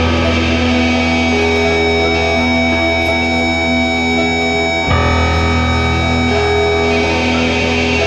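Live band playing an instrumental passage: electric guitar chords ringing out over a violin, with long held notes and a heavy low end, and a new chord struck about five seconds in.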